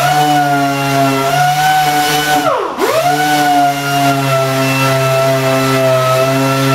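Orbital sander (a 'buzzer') running with 320-grit dry paper, sanding 2K spray putty off a plastic bumper repair. Its steady whine dips sharply in pitch and picks back up once, about two and a half seconds in.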